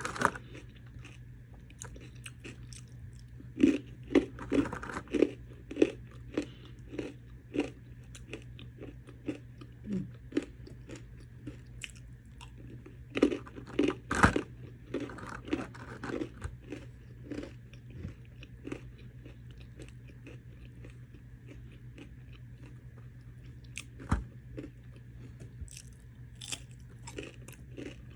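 A person biting and chewing crunchy snack food, in spells of sharp crunches with a quieter stretch in the middle. A steady low hum runs underneath.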